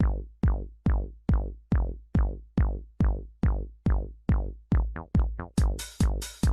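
Electronic music: a steady, punchy kick-drum beat at about two and a half beats a second. About five seconds in, a quick drum fill plays, and then hi-hats join on each beat.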